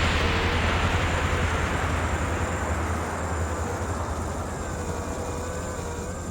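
Five-inch FPV quadcopter's brushless motors and propellers in flight, heard as a rushing whoosh of prop wash and wind with a faint wavering motor whine; the rush gradually dies down.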